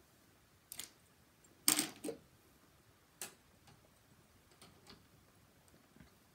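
Scattered sharp plastic clicks and clatters of Lego pieces being handled, with the loudest cluster about two seconds in and a few fainter clicks after.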